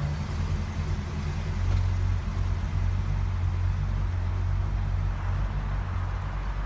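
A classic Corvette Sting Ray convertible's V8 engine running with a deep, steady rumble as the car reverses slowly down the driveway, swelling briefly about two seconds in.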